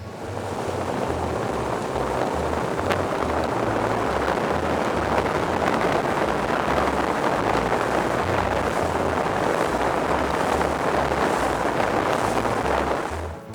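Steady loud rushing of wind and water as a boat runs fast, with wind buffeting the microphone. It cuts off suddenly near the end. Background music with a steady bass line plays underneath.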